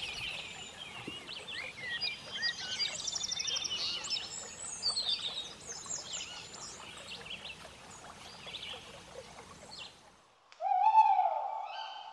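Woodland songbirds chirping and trilling, several calls overlapping, over a faint outdoor hiss. It cuts off, and about eleven seconds in a loud held tone starts.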